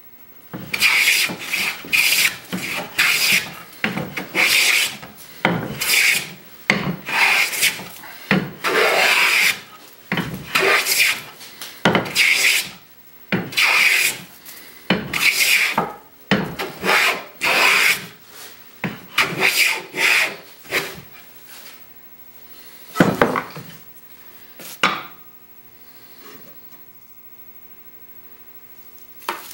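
Metal bench hand plane taking shavings off a sipo mahogany board: a steady run of quick strokes, about one a second, for some twenty seconds, with a short pause partway. These are light smoothing passes with the blade set shallower to take a hump out of the board. The strokes stop about three-quarters of the way through, followed by two single knocks.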